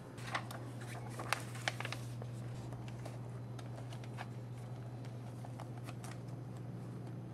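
Sheets of paper being handled and rustled, with a few light clicks, mostly in the first two seconds, over a steady low hum.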